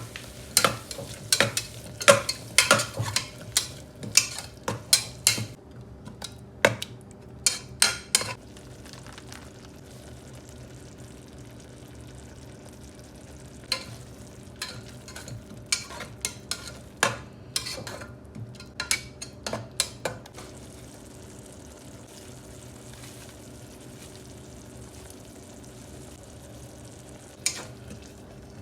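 Food frying in a pan as it is stirred with a spatula: runs of quick scraping and clacking strokes against the pan, with a low, steady sizzle in the pauses between.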